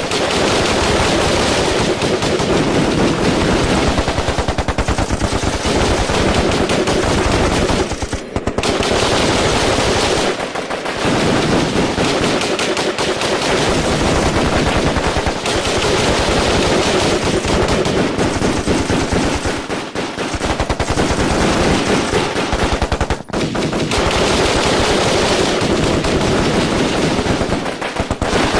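Sustained firefight: heavy automatic gunfire, many weapons firing rapid, overlapping bursts almost without pause, with a few brief lulls.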